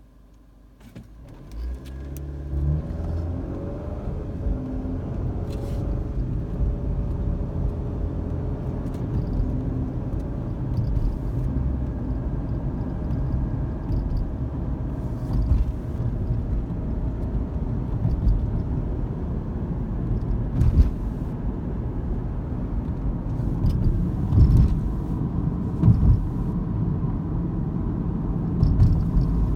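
Car pulling away from a standstill and driving on, heard from inside the cabin. The engine rises in pitch as it speeds up over the first few seconds, then settles into steady low road and tyre noise, with a few short knocks as it goes over bumps.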